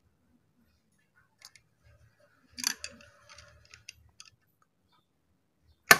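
Screwdriver turning the slotted screws of a Juki MH-380 chain stitch machine's control lever crank assembly loose: scattered faint metal clicks and scrapes, a short cluster of them about two and a half seconds in, and a sharp click just before the end.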